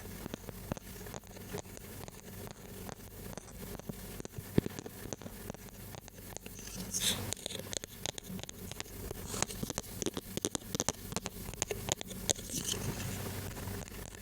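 Close-miked ASMR tapping and scratching: a fast, irregular run of light clicks, with louder crinkly scratching from about seven seconds in.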